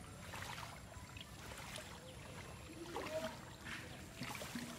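A small wooden boat gliding on still water with no motor: faint trickling and a few soft splashes of water around the hull.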